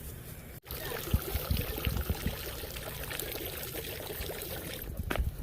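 Steady rush of running water, with irregular low thumps under it; a brief dropout about half a second in.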